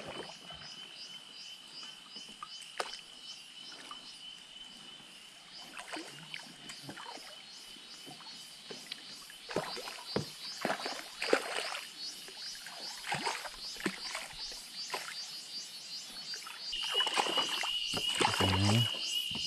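Steady high buzz of insects in the riverside forest, growing louder near the end, with repeated splashes and knocks from about halfway through as a hooked piraputanga thrashes at the surface beside the kayak.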